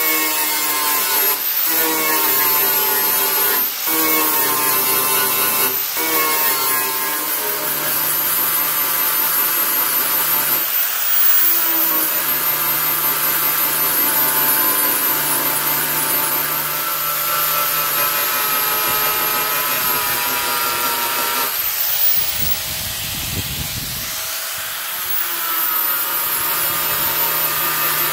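Electric angle grinder with a flap disc running under load, grinding spot welds and rust off the sheet-metal cab panel with a steady high whine. The sound dips briefly three times in the first six seconds as the disc lifts and bites again, and it eases off for a couple of seconds near the end before picking back up.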